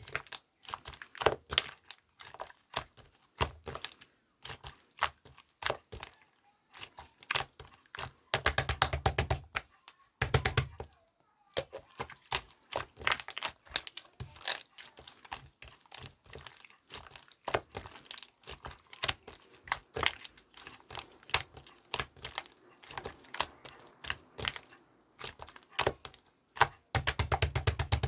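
Irregular crinkling and crackling clicks, with denser rapid flurries about eight and a half seconds in, around ten and a half seconds, and again near the end.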